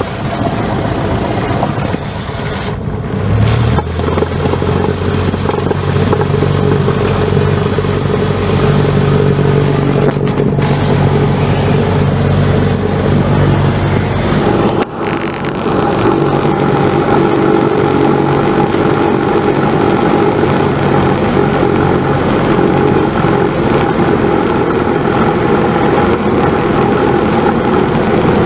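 Cessna 172's piston engine and propeller running loud in the cockpit. A deep steady engine note comes in about three and a half seconds in as power is set for the takeoff roll of a touch-and-go. About halfway through there is a brief dip, after which the engine note changes.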